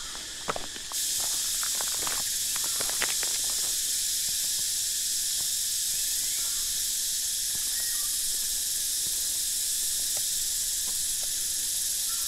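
Steady high-pitched drone of cicadas in the forest, which comes in suddenly about a second in and holds level. A few footsteps sound in the first few seconds.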